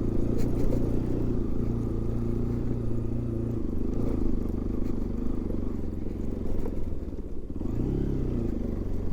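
Motorcycle engine running at a steady throttle while riding, its note dropping away briefly near the end before picking up again.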